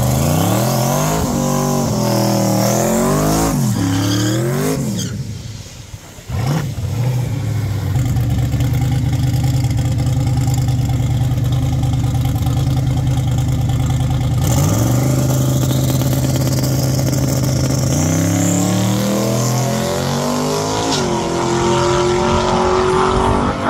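Chevrolet Silverado drag-racing pickup truck's engine revving up and down repeatedly, then held at a steady note on the start line. About fourteen seconds in it launches, its pitch climbing again and again as it pulls through the gears.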